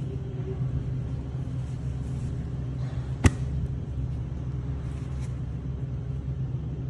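Steady low hum with faint rustling of toilet paper being handled and torn, and one sharp click about three seconds in.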